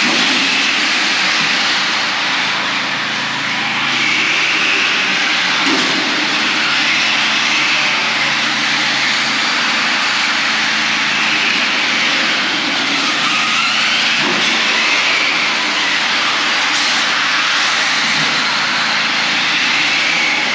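Several radio-controlled cars racing on concrete, their motors whining up and down in pitch with the throttle over a steady hiss.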